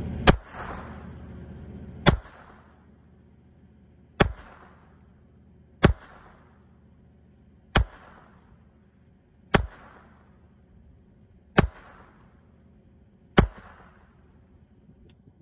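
Colt Model 1903 Pocket Hammerless pistol firing eight .32 ACP rounds one at a time, about two seconds apart, each shot trailing off briefly. The eighth shot empties the magazine.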